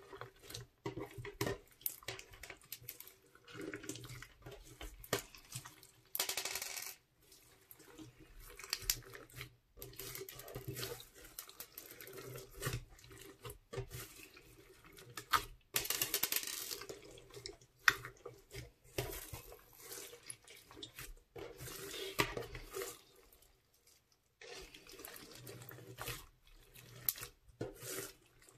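Hands squishing, folding and pulling a large mass of crunchy slime packed with foam beads, in irregular wet squelches and crackles, a few of them longer and louder.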